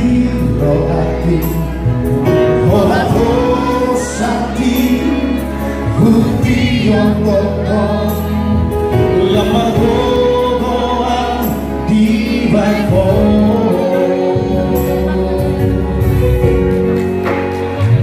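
Male vocal trio singing a Batak song in harmony through microphones, several voices sounding together.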